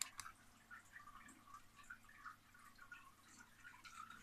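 A single sharp click of the push-button switch on a home-built Commodore 64 FM radio cartridge, followed by near silence with faint scattered ticks.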